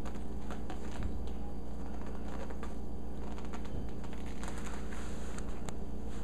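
A kitten's claws catching and scratching on cloth trousers as it climbs and pounces, a scatter of light clicks and rustles, over a steady low hum.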